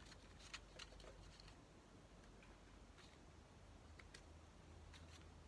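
Near silence, with a few faint, soft clicks and ticks of small glitter-paper squares being picked up and pressed onto a paper plate by hand, over a low room hum.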